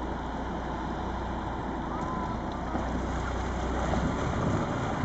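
Small fishing boat's inboard engine running steadily under load as it tows another boat on a line.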